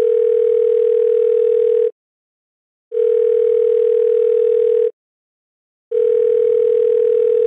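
Telephone ringing tone heard down the line while a call waits to be answered: a single steady tone of about 450 Hz, sounding for about two seconds then pausing for about one, three times.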